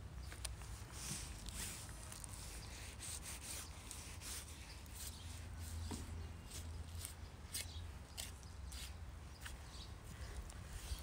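Kitchen knife cutting and trimming raw beef liver on a wooden cutting board: a string of short, faint scraping and slicing strokes over a low rumble.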